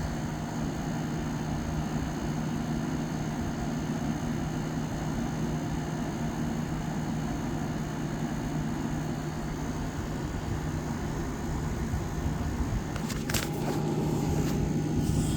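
1987 Montgomery Wards by Frigidaire 7000 BTU window air conditioner (VWE-5157A) running and cooling: a steady hum over the even rush of the fan. A few short clicks sound near the end.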